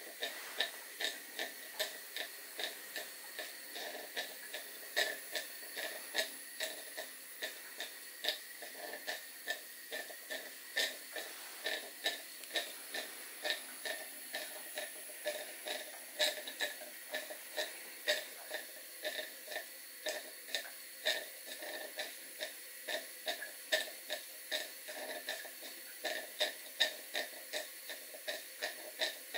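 Cotswold Heritage model beam steam engine ticking over slowly on live steam, with soft, even beats at about two a second over a steady hiss.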